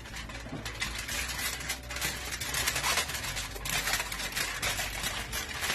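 Aluminium foil crinkling and crackling as it is folded and crimped shut around a fish, a dense run of sharp crackles throughout.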